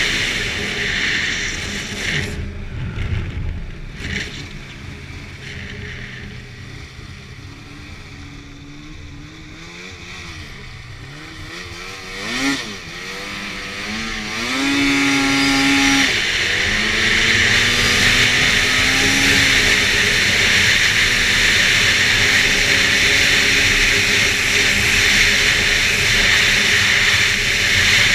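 2011 Arctic Cat F8 snowmobile's two-stroke twin engine under way: it eases off and runs quieter for several seconds with its pitch wandering up and down, then accelerates hard about halfway through. It then holds a loud, steady high-speed run with a strong rushing hiss from wind and track.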